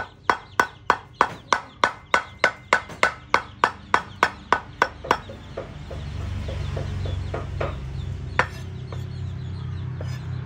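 Cleaver chopping grilled fish flesh on a wooden cutting board, about three even strokes a second, stopping about five seconds in. After that a low steady hum and a few soft knocks.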